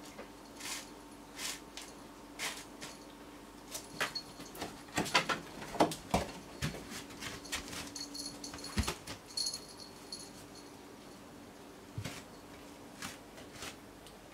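A cat pawing and batting among shoes on a concrete floor as it hunts a cockroach: irregular scuffs, taps and rustles, busiest and loudest about five to six seconds in.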